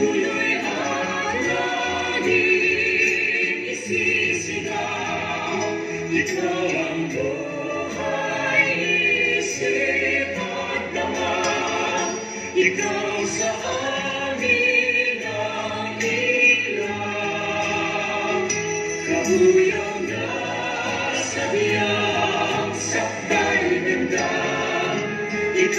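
A choir singing a Christian hymn with musical accompaniment.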